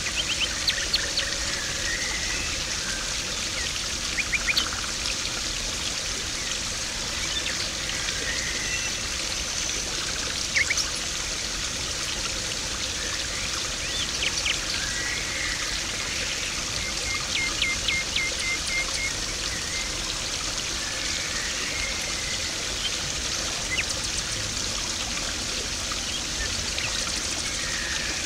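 Garden pond water splashing and trickling steadily. Small birds chirp now and then over it, including a quick run of short notes a little past the middle.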